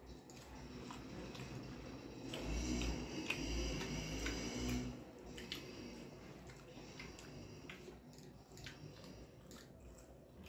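A person chewing a mouthful of rice and curry, louder for a couple of seconds about a third of the way in. After that comes the soft wet squish of fingers mixing rice and curry on a metal plate, with small scattered clicks.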